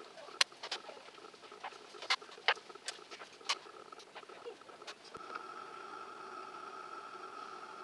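Sharp wooden clicks and taps of chess pieces being set down on boards and chess clock buttons being pressed, about a dozen irregular clicks. About five seconds in they stop and a steady faint hum with a constant high tone takes over.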